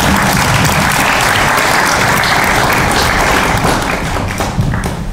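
Audience applauding, thinning out over the last second or so.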